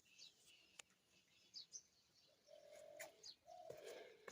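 Faint birds calling: several short high chirps, and two short lower held calls in the second half.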